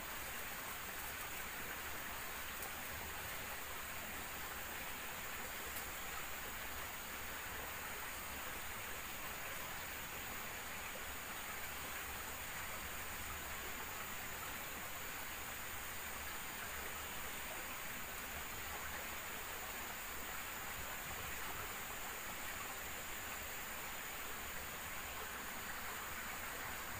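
Steady rushing of water: an even, unbroken hiss with a faint steady high tone above it.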